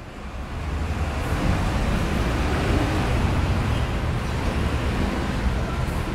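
City traffic ambience fading in, then holding: a steady rumble and hiss of road traffic.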